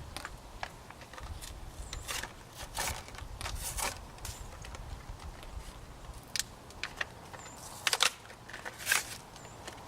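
Irregular clicks, taps and crackles of hands handling small parts and plastic packaging, with the loudest cluster of clicks about eight to nine seconds in.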